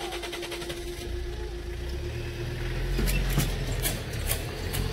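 A car pulls away and drives over a railway level crossing as the barriers lift, its engine and tyres growing loudest as it passes close, about three seconds in. Before that a steady tone is sounding, and it stops as the car moves off.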